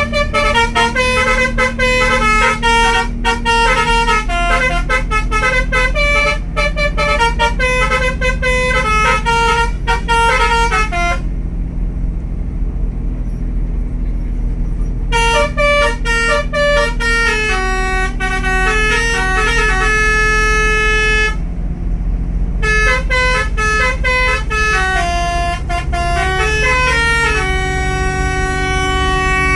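A bus's Basuri telolet multi-tone air horn playing a tune of held notes that step from pitch to pitch, falling silent twice, over the steady rumble of the bus's engine.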